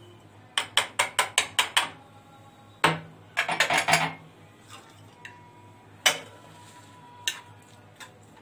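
A small metal strainer of soaked raisins tapped quickly about eight times to shake the water off, then a loud knock and a cluster of clinks and knocks as the raisins are emptied out. A few single knocks follow.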